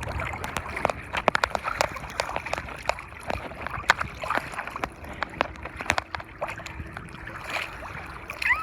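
Sea water splashing and sloshing around a recorder sealed in a waterproof bag, heard muffled through the plastic, with many sharp clicks and crackles.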